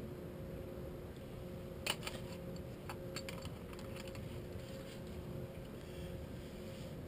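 Steady low hum of a boat waiting in a lock chamber, with a faint steady tone over it. About two seconds in there is a sharp click, then a scatter of lighter clicks and taps on the boat.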